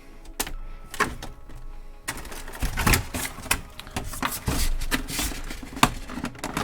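Plastic toy packaging being handled and pulled apart, giving a quick, irregular run of clicks and crackles that gets busier about two seconds in.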